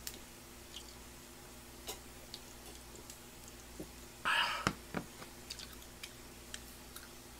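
A man drinking beer from a glass, with faint scattered mouth and swallowing clicks, then a short breathy exhale a little past four seconds in, followed by two sharp knocks as the glass is set down on the table.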